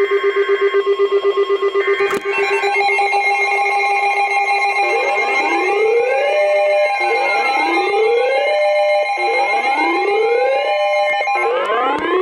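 NOAA Weather Radio alert: three short, harsh SAME data bursts over fast beeping, then several weather radio receivers sounding their alert alarms at once, a chorus of steady tones with siren-like rising sweeps repeating about every two seconds. These are the sounds that open a new warning broadcast.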